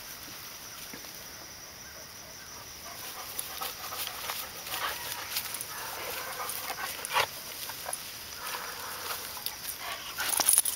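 Dog sniffing and snuffling with its nose in evergreen shrubs, branches rustling around it, with a louder rustling burst near the end.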